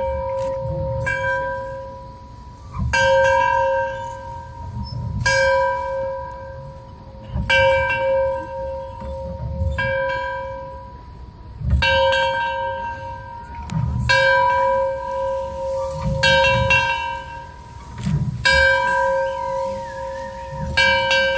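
A large bell tolled, struck about once every two seconds with now and then a quick extra strike, each stroke ringing on with a clear, lingering tone.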